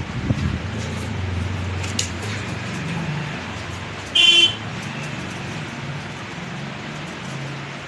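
Low, steady traffic rumble with one short, loud vehicle horn toot about four seconds in.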